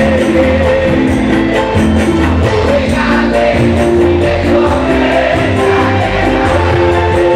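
Live campursari band playing a song with singing over a steady beat through a loud concert PA.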